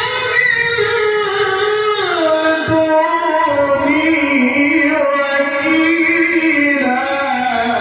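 Quran recitation in the melodic tilawah (mujawwad) style: a male reciter holds one long, drawn-out melismatic phrase, gliding down and then wavering through quick vocal ornaments.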